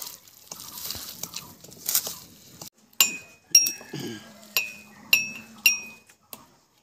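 Soft squelching of hands mashing chalta and kul in a steel bowl. About three seconds in this gives way to a run of sharp metallic clinks, about two a second, each ringing briefly, from a rod striking inside a small metal pot.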